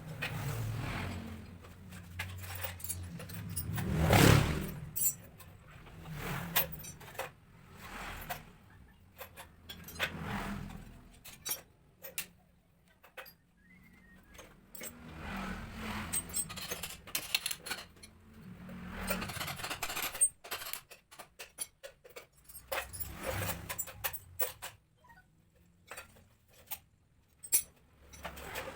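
Scattered metallic clinks and rattles, as of tools and small parts being handled, with a few longer handling noises between them, the loudest about four seconds in.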